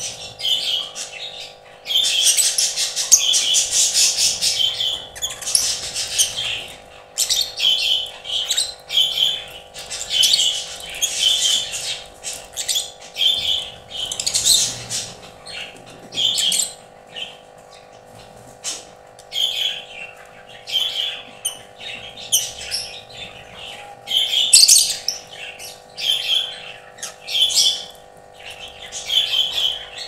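Fischer's lovebirds chattering in a cage: shrill, high chirps and squawks in repeated bursts a second or two long, with short pauses between them.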